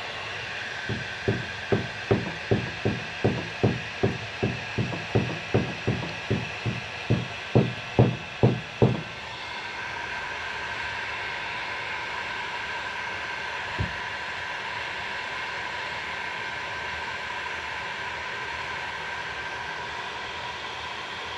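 A regular series of about twenty dull thuds, a bit over two a second, which stops after about eight seconds; one more thud follows a few seconds later. A steady hum with a faint whine runs underneath.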